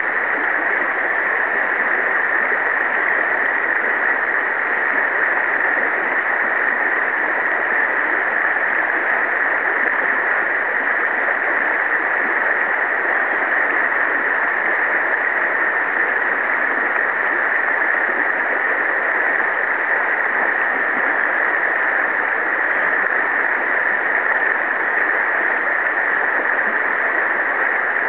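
Steady rush of river water flowing over a shallow riffle.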